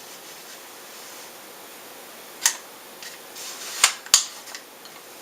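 Adjustable nylon-fibre stock of a KWA M4A1 airsoft rifle being moved between its positions: sharp clicks, one about halfway through and two in quick succession near the end, with light handling noise.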